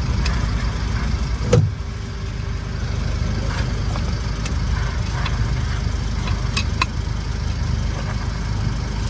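A steady low rumble with a sharp metallic knock about one and a half seconds in and a few light clicks later. The knock and clicks are tools and bolts being worked on a Mitsubishi Fuso truck's rear brake caliper.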